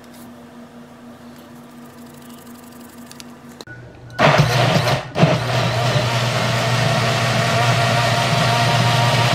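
A small personal blender's motor starts about four seconds in and runs steadily, pureeing tomatoes and dry seasonings into a sauce. It cuts out for a moment just after starting, then runs on evenly.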